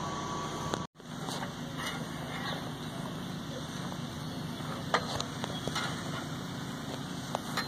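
Small engine running steadily, a low even hum, with faint voices of people and a few light clicks; the sound cuts out briefly about a second in.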